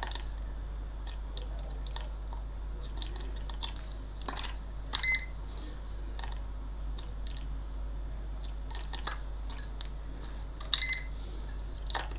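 Multimeter continuity beeper sounding two short beeps, about five seconds in and again near eleven seconds, over light clicking of test probes tapping the amplifier's output FET legs. A continuity beep signals a low-resistance path, the sign the meter gives of a shorted FET.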